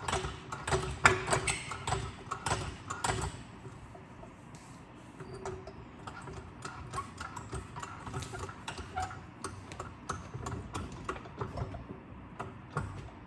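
Floor jack set under the front A-arm and worked: a run of sharp metal clicks and clanks about two a second for the first three seconds, then fainter scattered ticks.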